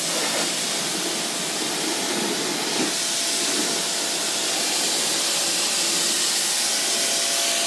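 Pressure washer spraying: a steady, even hiss of the high-pressure water jet from the wand, with a faint steady hum from the machine underneath.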